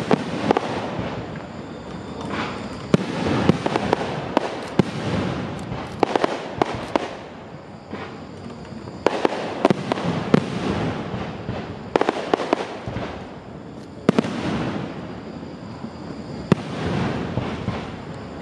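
Aerial fireworks display: shells bursting one after another, with sharp bangs at irregular intervals, several in quick succession at times, over a continuous rushing noise between them.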